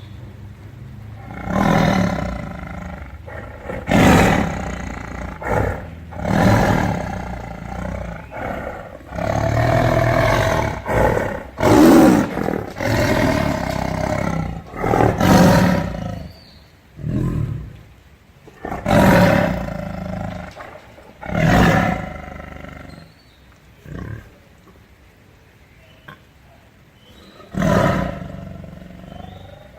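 Tiger giving a series of loud, rough roaring calls, each lasting one to two seconds, with a few longer pauses between them.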